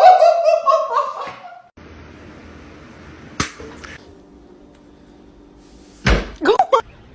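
A person's voice, wavering in pitch, fades out about a second and a half in. After it comes quiet room tone with a single click, then a quick cluster of sharp knocks near the end.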